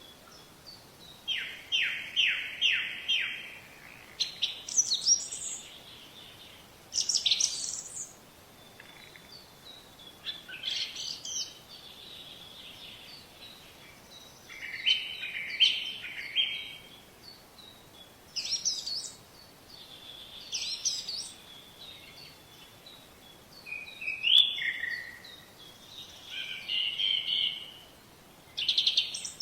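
Songbirds singing and calling: short phrases of quick high chirps and whistles every few seconds, opening with a run of five fast falling notes, over a faint steady hiss.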